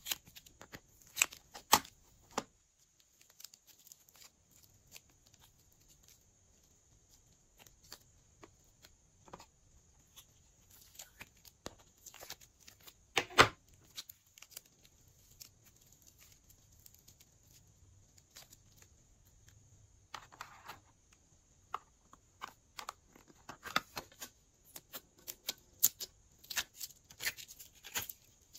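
Glossy slime being mixed and squished: scattered sticky clicks and pops with a louder snap about 13 seconds in, coming thicker and faster in the last several seconds.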